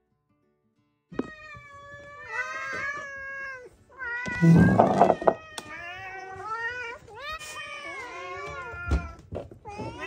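Several domestic cats meowing over one another at feeding time, begging for food, with long drawn-out meows and a loud one about four seconds in. A sharp thump comes about nine seconds in.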